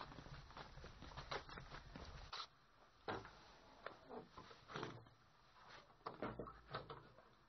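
Quiet room tone with a faint low hum that stops a little over two seconds in, and faint scattered knocks and clicks.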